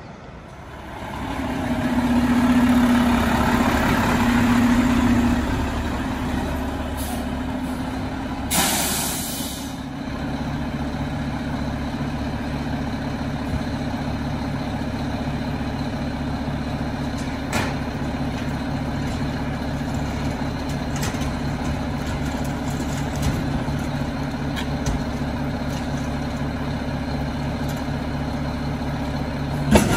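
Mack LR garbage truck's diesel engine running, getting louder over the first couple of seconds and loudest for a few seconds, then running steadily. About nine seconds in there is a hiss of air lasting about a second, like an air brake release.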